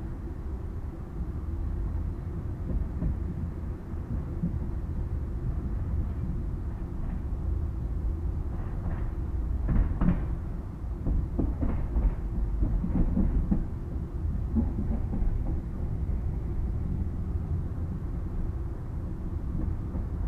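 Express train running on the track, heard from beside the coach: a steady low rumble from the wheels and running gear. Between about eight and fourteen seconds in comes a cluster of sharp knocks and clacks as the wheels pass over the rails.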